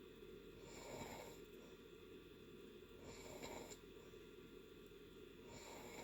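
A person snoring faintly in deep sleep, one soft, airy snoring breath roughly every two and a half seconds.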